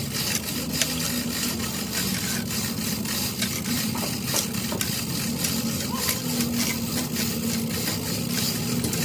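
A machine running steadily, with a constant low hum and a rapid rattle of clicks.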